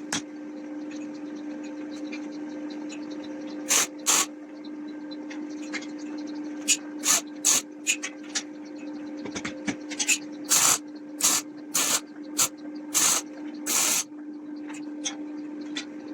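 About a dozen short bursts of hissing spray in irregular groups, most of them in the second half, over a steady machine hum.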